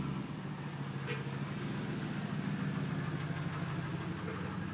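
Toyota Tundra pickup's engine idling steadily.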